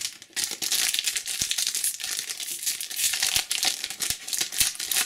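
A trading card pack wrapper being torn open and crinkled by hand, a continuous crackle with scattered sharp clicks.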